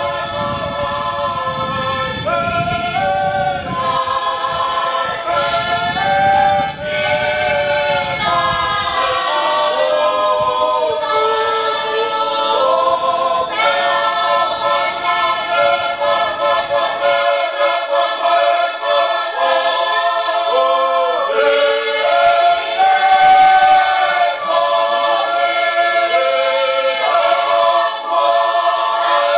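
A choir singing unaccompanied in harmony, holding chords that shift every second or two. A low rumble runs underneath for the first several seconds, then drops away.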